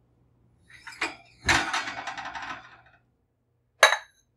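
Metal muffin tin pulled out of the oven over the wire rack: a clank, then about a second of metallic scraping and rattling, and a single sharp clack near the end as the tin is set down.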